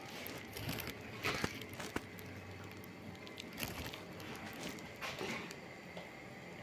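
Cats eating and scuffling over food on a tiled floor: a scatter of small irregular clicks, crunches and rustles, with a few sharper taps about a second in, near two seconds, and around three and a half and five seconds.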